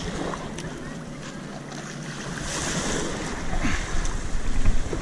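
Wind buffeting the microphone: a rumbling noise that grows stronger over the last second or two, with a few faint clicks.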